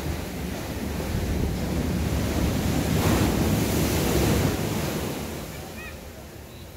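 Ocean surf on a sandy beach: a wave swells, breaks loudest about three to four seconds in, then washes back and fades, with wind rumbling on the microphone.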